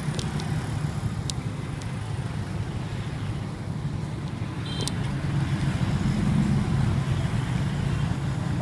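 Motor engine running steadily nearby as a low drone, growing louder about six seconds in.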